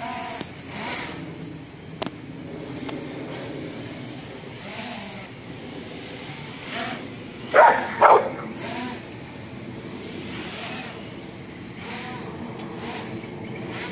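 Blade 350 QX quadcopter's motors and propellers whining steadily as it hovers and flies low. A dog barks now and then, with two loud barks about eight seconds in.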